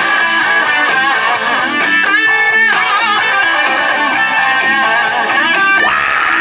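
Electric guitar playing a lead line full of string bends over a rock beat with drums, in the song's instrumental break.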